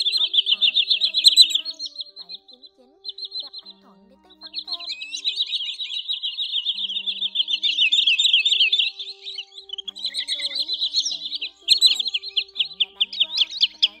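Sandpipers calling in fast runs of high, thin notes, breaking off from about two to four seconds in and then running on, with a short break near ten seconds. Faint background music with low held notes plays underneath.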